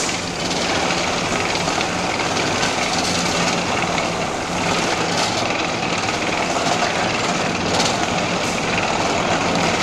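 Hollow chocolate spinning machine running, its mould frames rotating on their arms: a steady mechanical running noise with a low hum.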